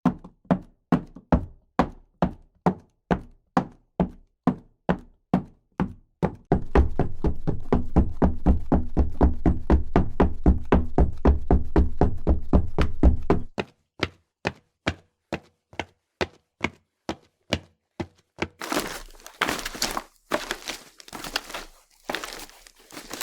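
Footsteps sound effect: walking steps at about two a second, then faster, heavier running steps from about six seconds in to about thirteen, then walking steps again. From about eighteen seconds in the steps turn to crunching, as on gravel, dry grass or leaves.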